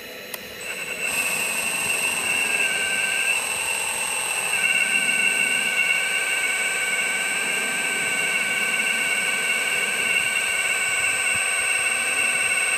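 Radio-controlled model excavator's drive motors whining steadily as the boom and bucket lift, starting about a second in, with the pitch of the whine shifting a couple of times as the movement changes.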